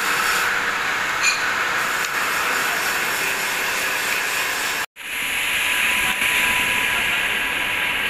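Steady hiss of TIG (argon) welding on a stainless steel exhaust flex pipe, broken by a sudden split-second gap about five seconds in.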